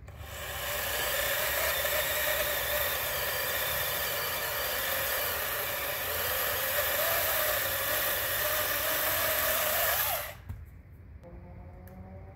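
Battery-powered electric chainsaw running under load as it cuts through a flowering plum branch, its motor pitch wavering as the chain bites. It stops abruptly about ten seconds in, once the branch is cut through.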